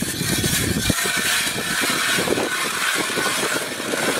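Hand-cranked ice auger drilling through pond ice: the blades cut with a continuous, gritty scraping and crunching as the handle is turned.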